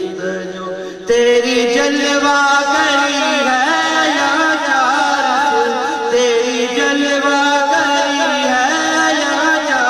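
A man singing a hamd, a devotional song in praise of God, into a microphone, with long held notes that waver and slide in pitch. After a brief dip the voice comes back in loudly about a second in.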